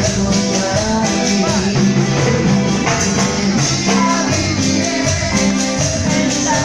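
Live band playing loud dance music with a steady, quick percussion beat.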